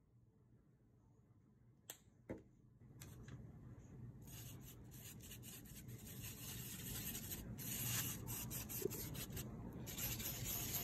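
A paintbrush scrubbing paint into crushed Orbeez water beads on a ceramic plate: a scratchy rubbing that starts about three seconds in, after two light clicks, and grows louder.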